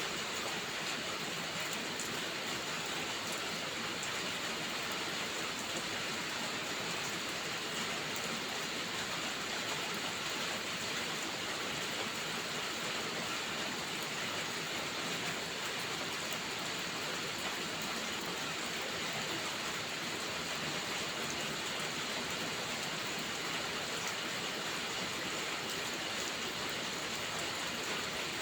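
Steady rainfall making an even, unbroken hiss, with a few faint ticks here and there.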